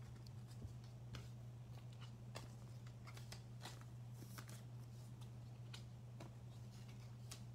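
Faint, irregular light taps and slides of trading cards being handled and set down on a tabletop, over a steady low hum.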